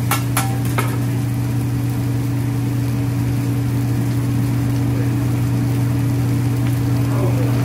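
Steady low drone of a hibachi grill's exhaust hood fan, with three sharp clicks in the first second.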